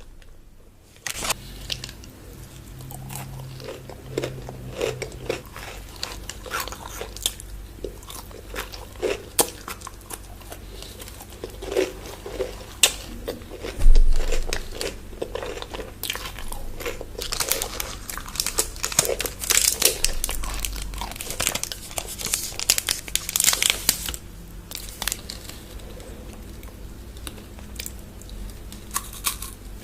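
Close-miked ASMR eating of chocolate bars: crunchy bites and chewing, with wrapper crinkling at times. The loudest hit comes about halfway through.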